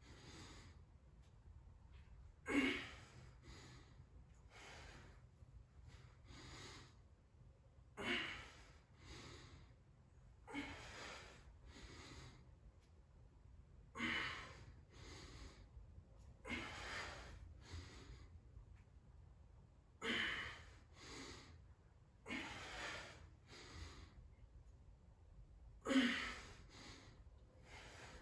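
A man's heavy breathing while working a kettlebell: a sharp, forceful exhale about every six seconds, with quieter breaths between.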